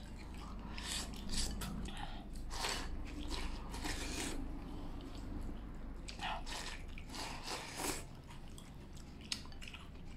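A man eating from a bowl with chopsticks: irregular chewing and slurping of stewed chicken, potato and rice. A single sharp click comes near the end.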